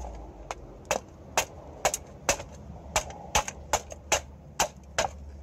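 Hammer tapping the loosened hub retaining bolts on a rusty rear suspension knuckle, steady metal-on-metal blows about two a second, driving the hub and wheel bearing out of the knuckle.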